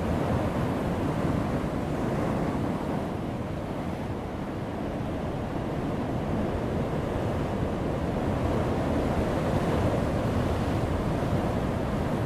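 Heavy ocean waves breaking on a rocky shore: a continuous wash of surf, strongest in the low end. It eases slightly about four seconds in and builds again near the end.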